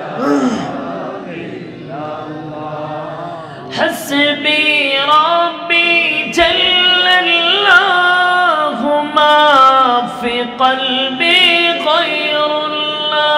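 A man singing an Islamic devotional verse unaccompanied into a microphone, in long drawn-out notes with a wavering, ornamented pitch. It is softer for the first few seconds and louder from about four seconds in.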